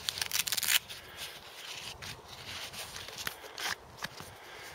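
Rucksack side pouch being opened and rummaged through by hand: a quick rasping burst of fabric and strap noise in the first second, then scattered light clicks and rustles.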